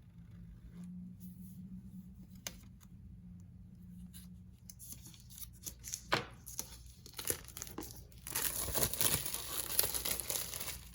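Wrapping being torn open and crinkled as a new notebook is unwrapped: a few soft clicks at first, then rustling and tearing from about halfway through, loudest near the end.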